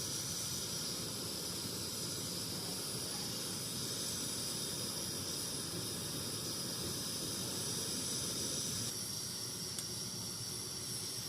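A pot of spiced kadha boiling steadily, giving a continuous hiss of steam as the liquid reduces down.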